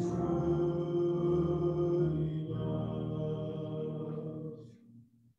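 A small vocal group with digital piano and bass guitar holding a final chord, which fades away about five seconds in.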